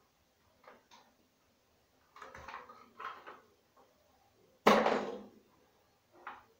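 Handling noises: scattered rustles and light knocks, with one sharp, loud knock a little past the middle, as things are picked up and set down while fitting a plastic pipe.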